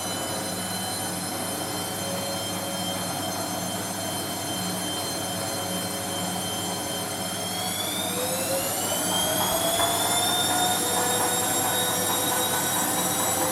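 Bosch MAXX 6 Express washing machine's drum motor whining steadily during a spin. About eight seconds in, the whine rises in pitch and grows a little louder as the drum speeds up, then holds at the higher speed.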